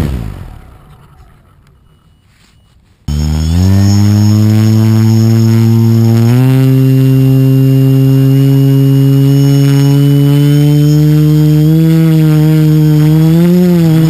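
Quadcopter's electric motors and propellers spinning down after landing, falling in pitch and fading to a faint hush within about two seconds. About three seconds in they start up abruptly and rise in pitch, step up again around six seconds, then run steadily and loudly, wavering slightly in pitch near the end.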